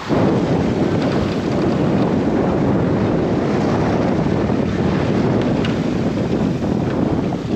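Steady wind buffeting the microphone over rushing water, aboard a sailboat under sail with the engine off. It starts abruptly at the very beginning.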